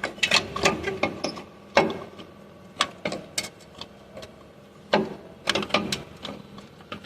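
Hand tools working on the engine bay's metal parts: irregular clicks and clanks in short clusters, with a few louder knocks.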